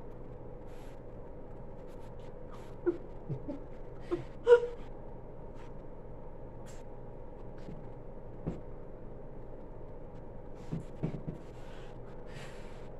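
Steady hum in a quiet room, with scattered short breaths, gasps and muffled vocal noises from players straining to pick up and stack marshmallows with their mouths, and a few brief knocks.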